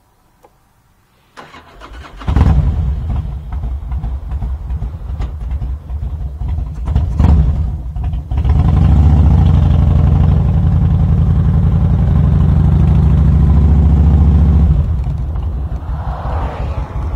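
Motorcycle engine cranked by its electric starter and catching about two seconds in, then running unevenly with a few light revs. From about eight seconds it pulls steadily under throttle as the bike rides off, and eases off near the end.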